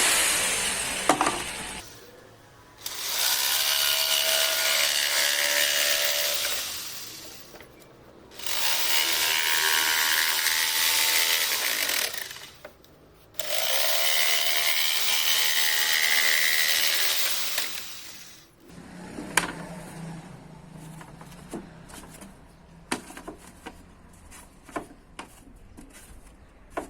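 A power tool working wood in three runs of about four seconds each, with short pauses between. After that come scattered light knocks and clicks of handling over a low hum.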